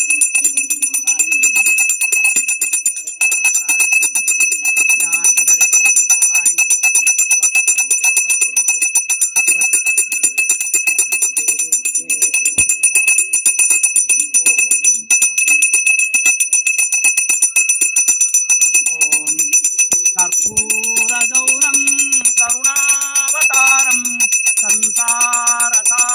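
A small brass puja hand bell rung rapidly and without pause, its bright ringing tones steady throughout, as is done during an aarti. From about two-thirds of the way in, a voice starts singing a devotional chant over the bell.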